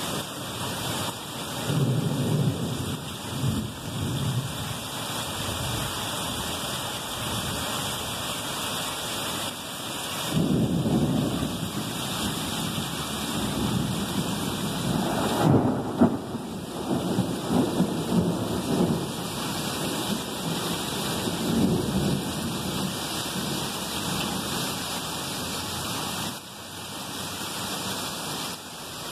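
Heavy rain pouring steadily in a thunderstorm, with thunder rumbling several times over it. The loudest crack comes about halfway through.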